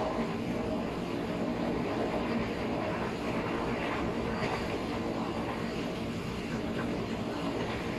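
KRL electric commuter train running at speed, heard from inside the carriage: a steady, even rush of running noise with a low hum under it.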